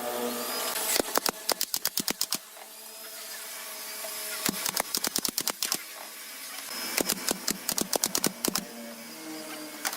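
Sharp clicks or knocks from woodworking on pallet wood, coming in three quick runs of several a second.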